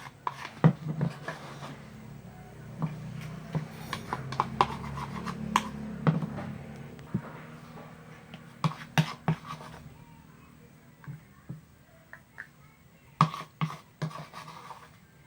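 A spoon scraping and tapping against a bowl as thick shampoo-and-salt slime is scooped out into a container, with many short sharp clicks and scrapes that thin out toward the end.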